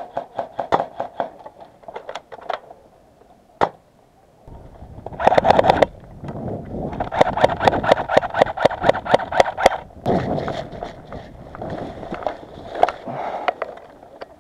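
Airsoft guns, including an electric (AEP) pistol, firing rapid strings of shots: a quick clacking at about five to eight shots a second over a motor-gearbox whir. There are several bursts, with a short lull about three to four seconds in.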